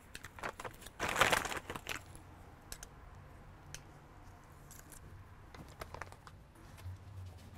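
Plastic bag crinkling about a second in as salvaged phones are handled, followed by scattered light clicks and taps of phones and small parts, over a faint low hum.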